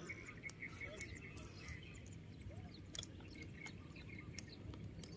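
Faint open-air background with a low steady rumble, a bird chirping a quick run of short notes in the first two seconds, and a few scattered light clicks.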